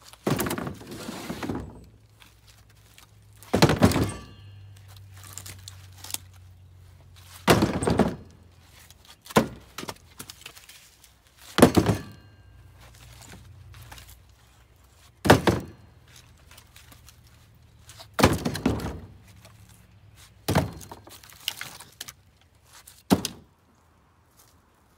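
Split hickory chunks thunking down one at a time into a Polaris Ranger's cargo bed, a heavy wooden knock every few seconds, about nine in all.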